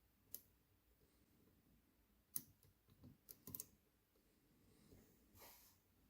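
Faint small clicks of a hook pick and tensioner working the pin tumblers inside a vintage Burg 116/50 padlock: one click near the start and a quick cluster of several around the middle, then a soft brief rustle near the end.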